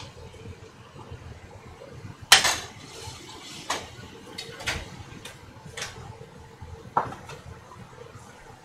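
Kitchen clatter as dishes and containers are handled and set down: a string of separate knocks, about half a dozen, the loudest about two seconds in.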